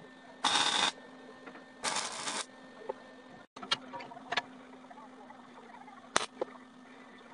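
MIG welder laying two short tack welds on sheet steel, each a crackling burst of about half a second, near the start. Then a few sharp metal clinks as steel plate is handled, over a steady low hum.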